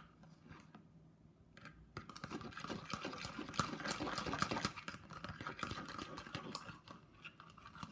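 Fast, wet little clicks and crackles of a jiggly homemade slime made from face wash and salt being squished and handled by hand. They start about two seconds in and carry on until shortly before the end.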